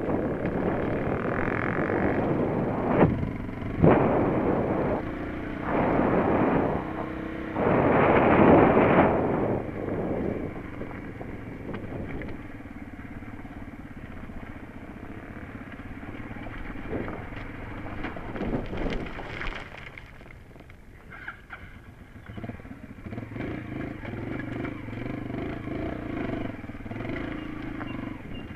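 Enduro motorcycle engine running as the bike rides a rocky dirt trail. For the first ten seconds it is heard under loud rushes of wind noise on the microphone, and after that the engine note is steadier and plainer.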